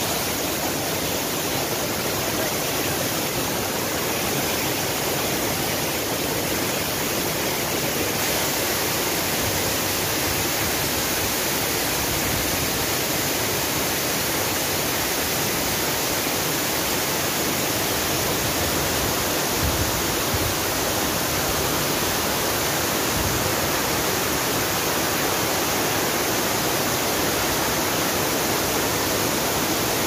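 Steady rushing of a mountain stream cascading over rocks, an even wash of water noise with no change.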